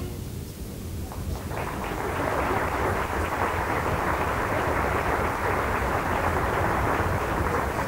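Audience applauding, starting about a second in and holding at a steady level.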